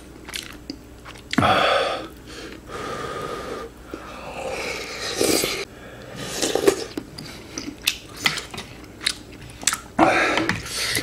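Close-miked eating of ramen: noodles slurped and chewed in irregular bursts, with short clicks of chopsticks and a wooden spoon against a glass bowl.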